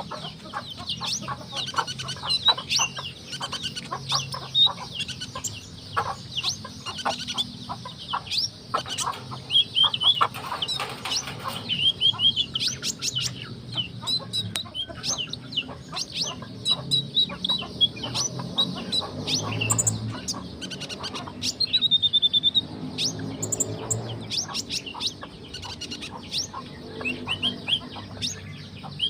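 Olive-backed sunbird (kolibri ninja) singing vigorously: a fast stream of sharp high chirps and short trills, several notes a second, in the busy, varied song that keepers call gacor.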